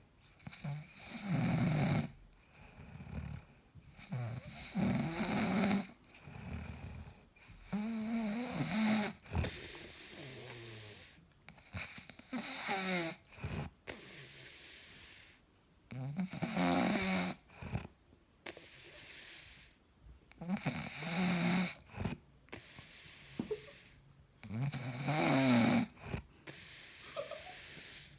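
A man snoring in his sleep: a low rattling snore on each breath in, followed by a hissing breath out, repeating about every four seconds.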